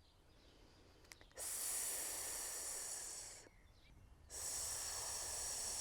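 A woman breathing out a long, steady hissing "sssss", the Chinese healing sound for the lungs. She makes it twice: one of about two seconds starting just over a second in, then after a short pause a longer one starting about four seconds in.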